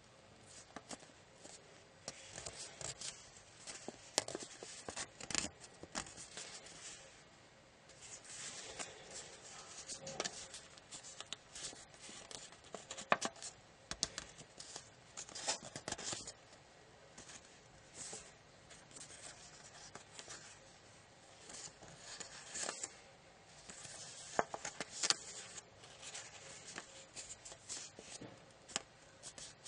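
A square of origami paper being folded and creased by hand: irregular rustling and crackling, broken by many short, sharp clicks as fingers press the folds flat.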